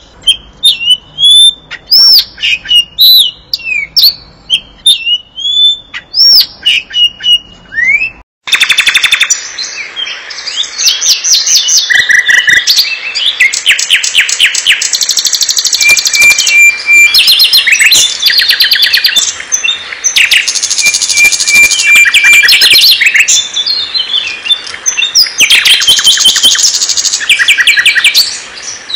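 Songbird song in two recordings. First come clear whistled notes that swoop up and down, repeated with short pauses. After a cut about eight seconds in, a nightingale sings its continuous rich song of fast trills, rattles and runs of repeated piping notes.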